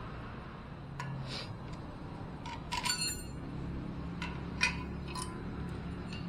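Scattered metallic clicks and taps, with a brief ringing clink about three seconds in, as a hacksaw and the cut steel pieces are handled; the sawing itself has stopped.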